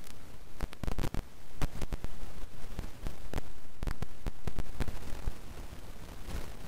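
Computer mouse clicking and desk knocks picked up by an open microphone, irregular and several a second, over a steady low hiss and hum.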